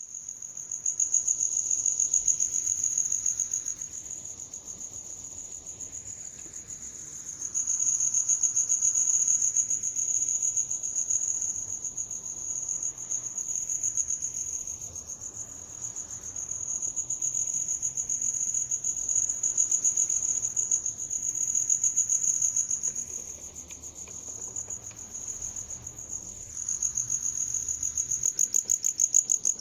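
A cricket singing: a continuous high-pitched trill that swells and fades in loudness every few seconds, as if circling the listener.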